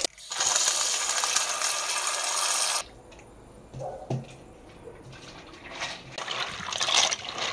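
Water tap running into a bowl as macaroni is washed, for about two and a half seconds, then cut off suddenly; softer water sounds return near the end.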